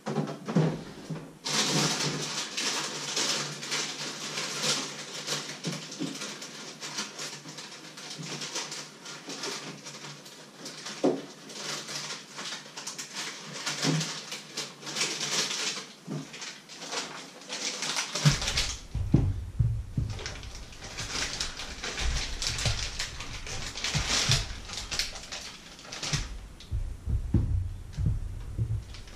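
Plastic bags and food packaging rustling, with small knocks and clinks, as items are handled and taken out of a fridge. Heavier bumps join near the end.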